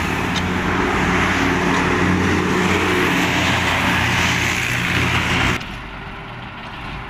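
Motor vehicle engine and road noise, loud and steady, cutting off sharply about five and a half seconds in.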